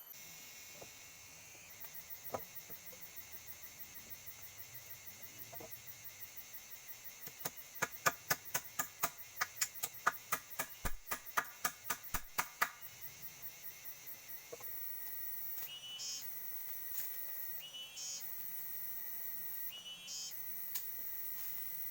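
Forest insects trilling steadily at a high pitch. A louder, fast pulsing call of about four or five pulses a second runs for several seconds in the middle, and near the end three short chirps come about two seconds apart.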